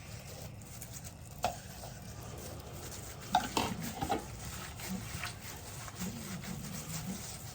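Kitchen utensil stirring food in a cooking pot, knocking against the pot once about a second and a half in and several times about three and a half seconds in.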